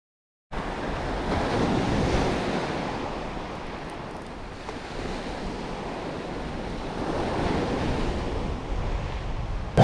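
Surf washing on a sandy beach, with wind on the microphone; the noise swells and eases slowly.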